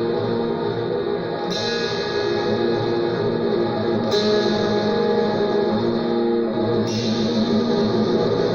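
Guitar music with echo effects: held, ringing notes, with a brighter wash of sound coming in three times, about every two and a half seconds.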